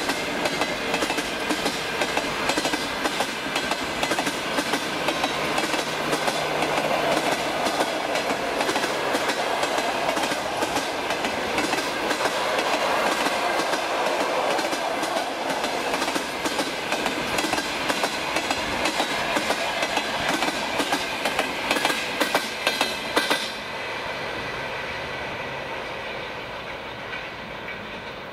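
Passenger train coaches rolling past, their wheels clicking again and again over the rail joints. About 23 seconds in, the last coach goes by and the sound drops to a fading rumble as the train moves away.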